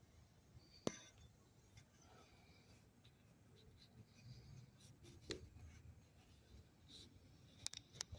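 Near silence with a few faint, scattered clicks and light handling or scratching noises.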